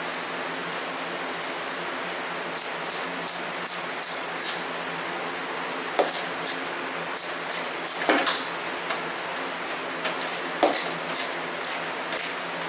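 A 1/4-inch drive ratchet clicking in short runs, starting a couple of seconds in, as a radiator hose clamp is tightened.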